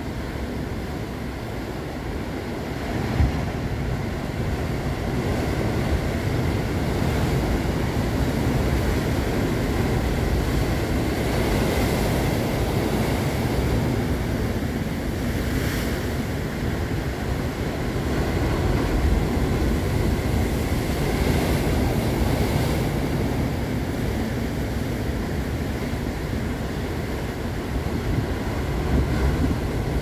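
Sea surf breaking over shoreline rocks: a continuous rush of water that swells louder every few seconds as waves crash and foam. Wind buffets the microphone with a low rumble.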